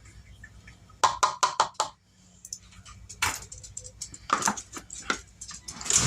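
Kitchen dishes and utensils being handled while measuring and mixing, clinking and knocking: a quick run of about five knocks about a second in, then a few single knocks.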